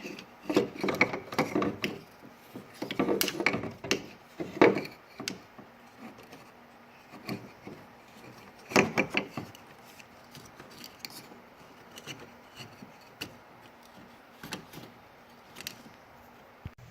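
Hood latch assembly being handled and fitted by hand: irregular clicks, knocks and scraping of the latch parts, in clusters with quiet gaps between them.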